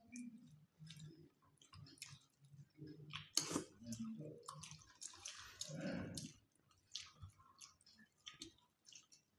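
Faint eating sounds of two people eating rice and fish curry by hand from steel plates: fingers mixing the rice, chewing, and scattered small clicks, with a few louder bursts about halfway through.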